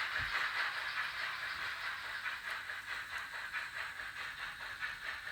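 Sound decoder of a Fleischmann N-gauge BR 01 steam locomotive (716975, DCC sound) playing steady, rapid steam chuffing through its small onboard speaker as the model runs.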